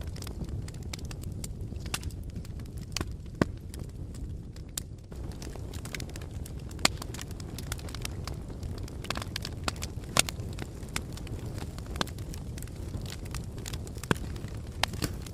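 Wood fire burning: a steady low rumble of flames with irregular sharp pops and crackles throughout, a few of them clearly louder than the rest.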